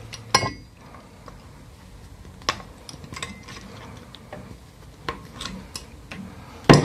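Pincer pliers snipping and working the surplus ends of soft tie wire on a twisted wire hose clamp: a scattering of sharp metallic clicks about a second apart, the loudest near the end.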